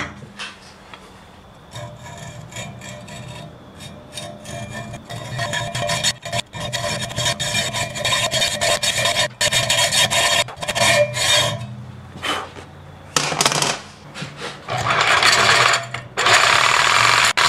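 A hand hacksaw cutting a 1-inch steel angle bar held in a vise, with repeated scraping strokes. In the last few seconds a cordless reciprocating saw cuts into the steel in short loud runs, the longest near the end.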